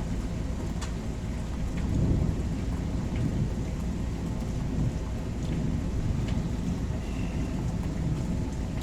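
Steady rain falling, with a low rumble of thunder that swells about two seconds in and scattered sharp ticks of drops.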